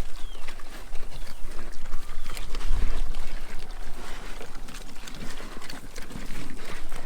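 Several pigs eating food scraps: grunts mixed with irregular chewing and smacking sounds.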